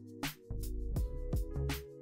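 Background music with a steady drum beat over sustained electronic-sounding notes.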